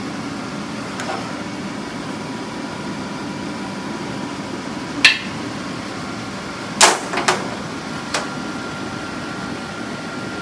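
Steady hum of shop air conditioning with a few sharp clicks and knocks of tools and small parts handled on a workbench, one about halfway through and a pair of louder ones a couple of seconds later.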